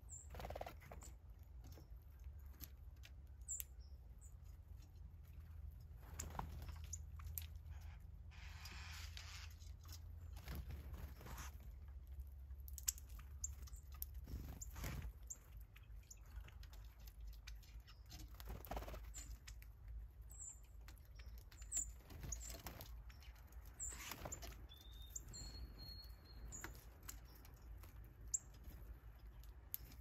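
Birds at a backyard feeder: a few short, high chirps and a brief whistled note, with scattered faint clicks and taps, over a low steady rumble. A soft hiss lasts about two seconds around nine seconds in.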